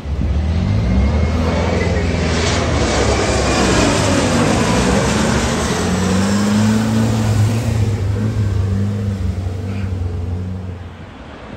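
Twin-turbofan regional jet passing low overhead on landing approach with its gear down. The jet roar comes in suddenly, its engine whine sweeps down in pitch as the aircraft passes, and the roar fades near the end.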